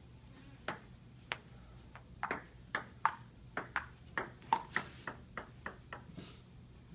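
Table tennis rally: the ball clicking sharply off the paddles and the table, two to four hits a second, the strokes coming quicker through the rally until it stops about six seconds in.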